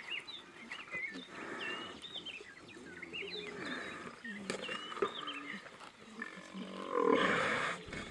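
Lionesses and cubs growling and snarling while feeding on a buffalo kill, in short repeated calls, with a louder snarl about seven seconds in.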